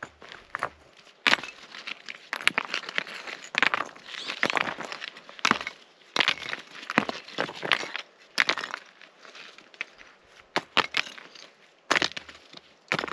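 Rocks being picked up and set on a stone fire ring: irregular knocks and scrapes of stone on stone, with gravelly crunching underfoot and under hand.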